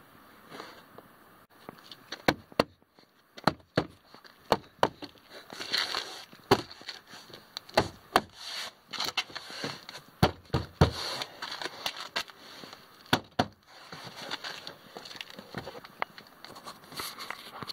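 Plastic door trim panel being pressed and knocked into place by hand. A run of irregular sharp snaps and knocks, loudest in the middle, thinning to lighter scuffs near the end.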